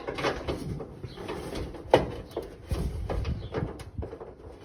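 Irregular metallic clicks and knocks of hand tools and hardware as a stubborn bolt is worked into a truck's hood hinge, with one sharp knock about two seconds in.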